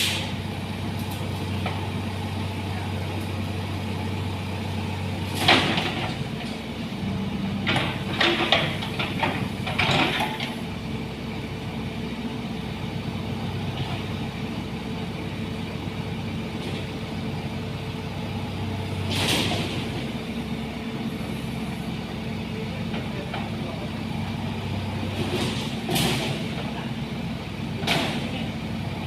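Heavy diesel engine running steadily at idle, with several short hissing or clattering noises over it.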